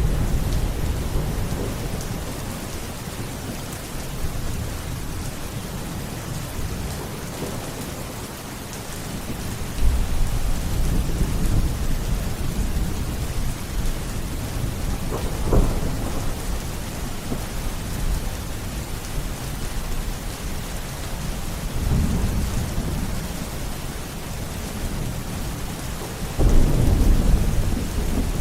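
Steady rain falling, with rolling thunder: low rumbles swell and fade several times, a sharper crack comes about halfway through, and a louder rumble comes near the end.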